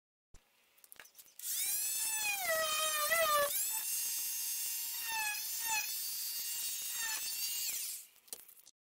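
A high-speed handheld electric grinder-sander whines as it grinds the edge of cured fiberglass. It starts up about a second and a half in and stops near the end. Its high whine dips in pitch several times along the way.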